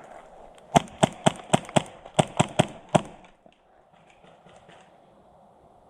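Airsoft gun firing a quick string of about nine single shots over two seconds, followed by a few faint shots further off.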